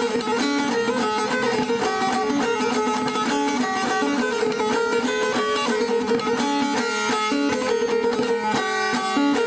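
Background music: an instrumental passage of plucked string instruments playing quick notes over a steady held low note.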